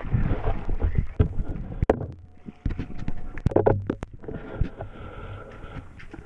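Irregular knocks and thumps against a GoPro housing as it is jostled out of the water and onto the boat, with a close cluster of them about three and a half seconds in, over a low rumbling hum.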